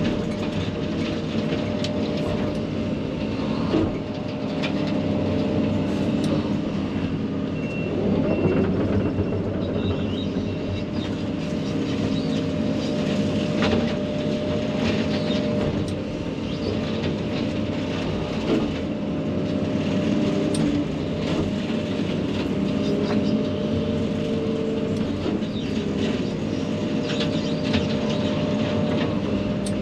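Case 140 excavator running a hydraulic brush-cutter head: a steady engine and hydraulic drone with scattered sharp snaps as brush is cut.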